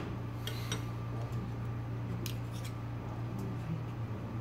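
Two metal spoons scraping through a soft diced-tuna mixture and now and then clicking lightly against a glass bowl, over a steady low hum.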